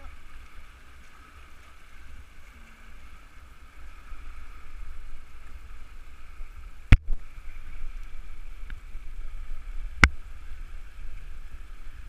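River water rushing and splashing past boulders in a steady hiss, with a low rumble beneath it. Two sharp knocks about three seconds apart, the first more than halfway through.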